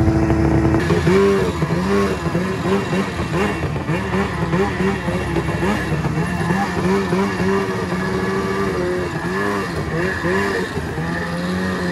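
Ski-Doo 600RS race snowmobile's two-stroke engine, very loud, running at a steady idle and then, from about a second in, revved up and down in many quick throttle blips as the sled pulls away. Near the end it settles into a steadier, higher pull.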